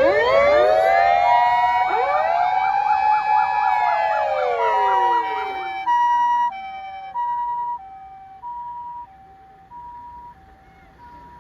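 Several Japanese fire-department sirens sound together. Mechanical wails wind up at the start, hold, then run down and die away. A fast electronic yelp warbles over them for a few seconds, and a high-low two-tone siren, the kind Japanese ambulances use, alternates about once a second and keeps going, fainter, after the wails stop.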